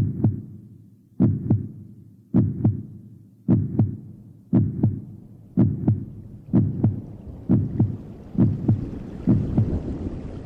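A slow heartbeat: paired lub-dub thumps about once a second, coming a little faster towards the end. Steady rain fades in under it over the second half.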